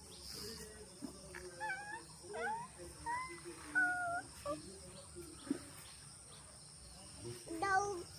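Steady high insect chirring, with a few short pitched calls that rise and fall heard over it.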